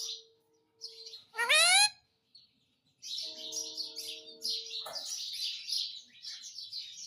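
Pet parrot calling: one loud, shrill call rising in pitch about a second and a half in, then from about three seconds on a long run of rapid, high chirping chatter.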